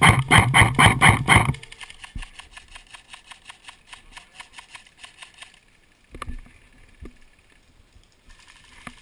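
Airsoft gun firing a rapid string of shots, about five a second, loud for the first second and a half and then fainter shots to about halfway through. A single thud follows about six seconds in.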